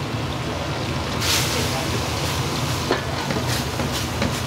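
Wok cooking at a restaurant gas burner: a steady low roar of the flame, with a loud burst of sizzling a little over a second in. A few sharp knocks of metal on the wok come later.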